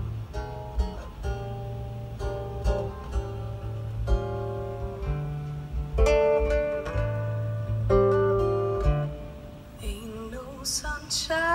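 Acoustic guitar music, plucked notes over deep bass notes, played through a Mercedes S-Class W222's factory Burmester speakers, now driven by a retuned Helix P6 DSP, heard inside the car's cabin.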